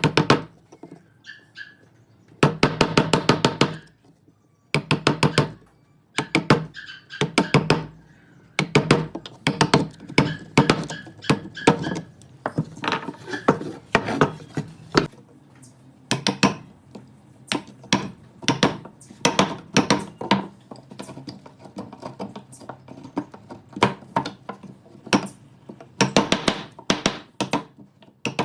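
Hand woodworking: bursts of rapid knocking and tapping on wood, in short runs separated by brief pauses.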